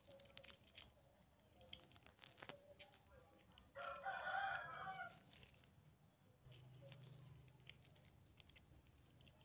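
A rooster crows once, about four seconds in, a call lasting a little over a second. Around it, faint clicks of metal tweezers picking at a shell.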